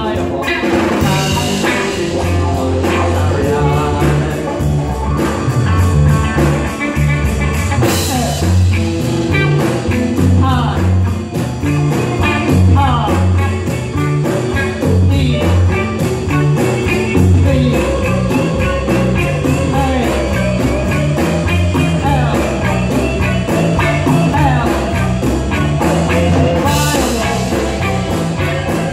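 Live rock band playing: electric guitars, bass guitar and drums with a male lead vocal, the bass line strong and a few crash-cymbal accents along the way.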